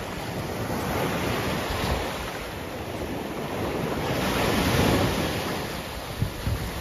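Small surf waves breaking and washing up onto a sandy beach. The wash swells loudest about two-thirds of the way through.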